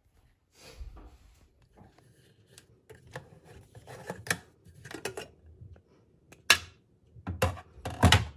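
Stainless-steel pressure cooker lid being unlocked and lifted off: clicks and rubbing from the locking handle and metal lid. There is a sharp clack past the middle and a cluster of louder metal knocks near the end.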